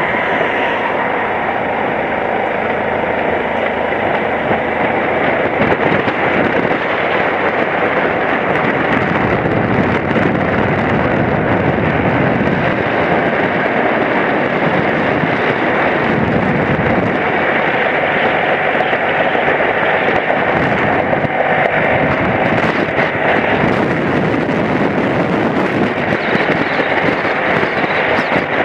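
Steady riding noise from a moving BMW F700GS motorcycle: wind rushing over the microphone mixed with the parallel-twin engine running at road speed.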